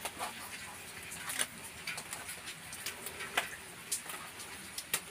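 Footsteps going down wet concrete steps: irregular taps and scuffs, about one or two a second, over a faint steady background hiss.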